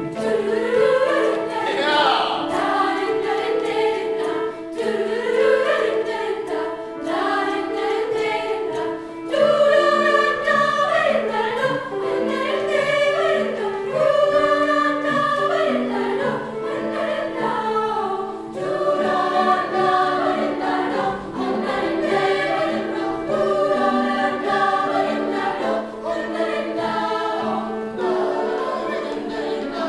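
Youth choir singing together in several voice parts, with sustained notes and moving lines running on with only brief pauses.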